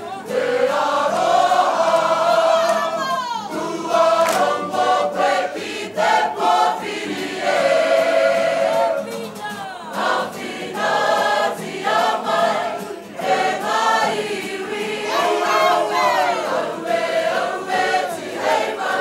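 A kapa haka group singing a Māori waiata together, women's and men's voices in unison, with long held notes.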